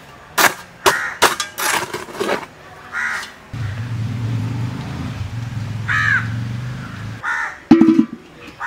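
Crows cawing several times, short separate caws. Under them come a quick run of sharp knocks in the first couple of seconds, a low steady hum for a few seconds in the middle, and two loud knocks near the end.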